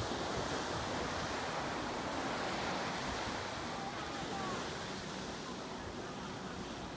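Small waves breaking and washing up the sand in a steady surf wash, with some wind rumbling on the microphone.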